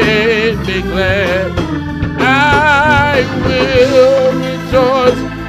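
Gospel praise-and-worship music: a voice singing long, wavering held notes over steady instrumental backing.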